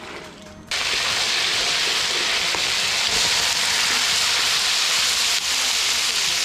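Chunks of blanched yak rib sizzling loudly in a hot wok as they are stir-fried. The steady hiss starts abruptly less than a second in.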